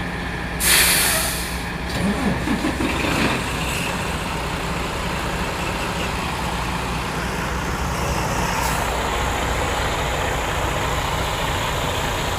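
Semi-truck diesel engine idling steadily, with a short loud burst of air hiss about a second in and some brief clatter a second or two later.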